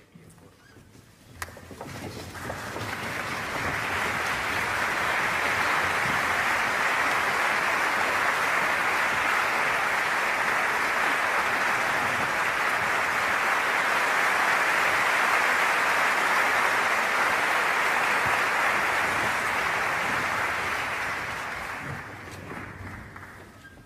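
Concert audience applauding: the clapping swells over the first few seconds, holds steady, then dies away near the end.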